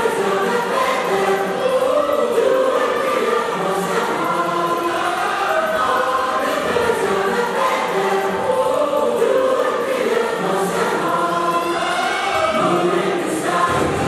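Music with a choir singing long held notes.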